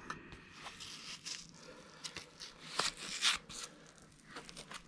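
Faint rustling and scratchy crackles of a neoprene tool wrap and its strap being handled and pulled around a bicycle frame, with a few short sharper scratches about three seconds in.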